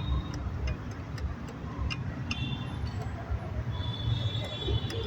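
Low background road-traffic rumble with scattered light clicks and a faint high tone starting near the end.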